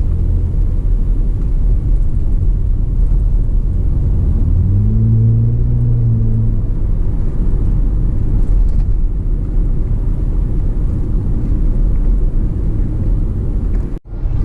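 Hyundai Azera V6 with its rear mufflers removed, its exhaust giving a loud, steady low rumble while driving. About four and a half seconds in, a pitched engine note rises, holds for about two seconds and fades. There is a brief dropout near the end.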